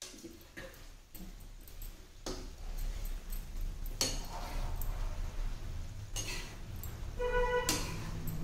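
Metal ladle stirring and scraping cauliflower and potato pieces in a kadhai, with scattered clinks of the ladle against the pan over a low steady rumble. A short pitched tone sounds about seven seconds in.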